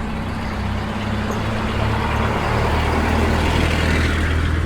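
A vintage motor vehicle's engine running as it drives past, its low steady hum growing louder to a peak about three to four seconds in.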